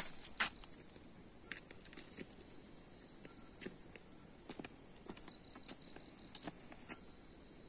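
Night insect chorus: a steady, high, shrill trill, joined around five seconds in by a second insect's shorter pulsed trill. Occasional light footsteps and rustles in the grass.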